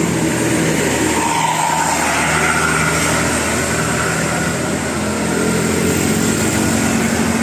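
Large bus engine running steadily with road noise over several seconds.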